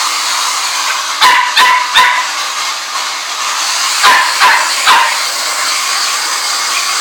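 Small dog barking, two quick runs of three sharp, high barks, over a steady hiss.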